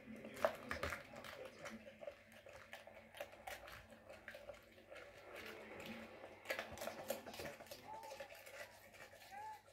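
Cane Corso licking up raw egg and chewing eggshell bits off a carpet: faint, irregular wet mouth clicks and smacks, with a cluster about half a second in and another around six and a half seconds.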